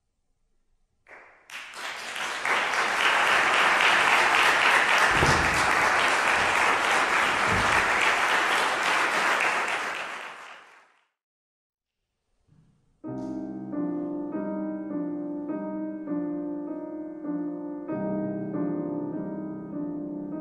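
Audience applauding for about ten seconds, then fading out. After a short silence, a grand piano starts playing near the end.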